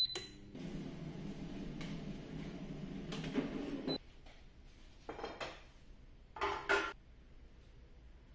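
Ultenic K10 air fryer's touch panel beeps as it is set to preheat, then the fryer runs with a steady hum that cuts off suddenly after about four seconds. Later, two short clatters as the air fryer's basket is handled on a metal wire rack.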